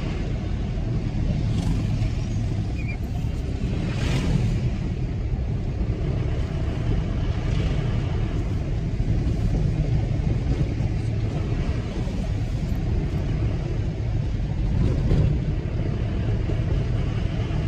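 Low, steady rumble of engine and tyre noise heard from inside a moving car on a hill road, with a few brief louder hissing swells.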